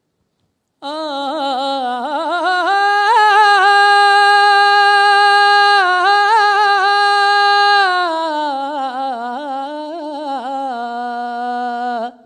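A man singing solo and unaccompanied into a microphone: an ornamented phrase with quick turns that starts about a second in, climbs to a long high note held with vibrato, then winds back down to a lower line and stops just before the end.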